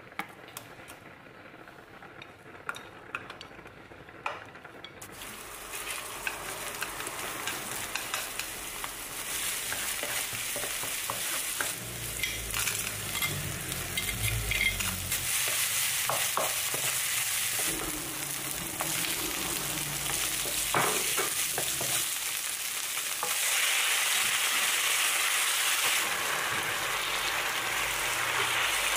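Shrimp, garlic and green onion sizzling in hot olive oil in a non-stick wok, with a spatula scraping and tapping the pan. A few light clicks come first, then the sizzle starts about five seconds in. It grows louder and stays loud near the end as spaghetti is tossed through it.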